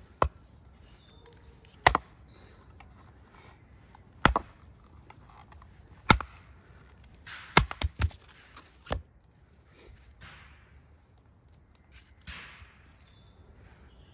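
Machete chopping and splitting a birch log on a wooden chopping block: about eight sharp wooden knocks at uneven intervals, three in quick succession just before the middle, then a couple of softer rustling sounds near the end.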